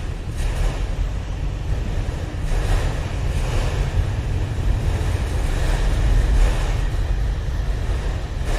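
A train rolling past, heard as a continuous rushing rumble, with wind buffeting the microphone in gusts.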